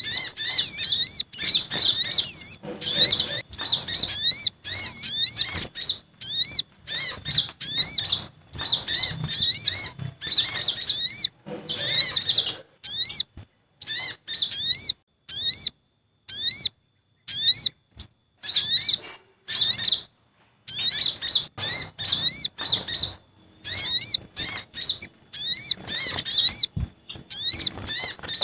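Bird-lure recording of excited sunbirds calling: sogok ontong (sogon) mixed with kolibri ninja (konin). Rapid, high, thin chirps and sharp slurred notes come in busy bursts broken by short pauses.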